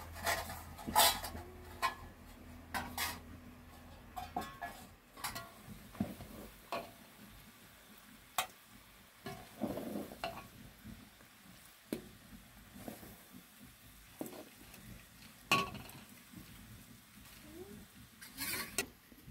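A utensil stirring and clinking against a cooking pot, with irregular knocks and scrapes of cookware.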